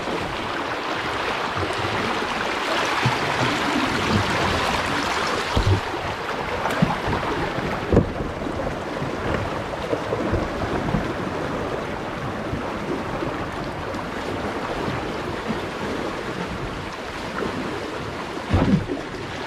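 Shallow river water rushing steadily over a riffle, with a few sharp knocks, the loudest about eight seconds in.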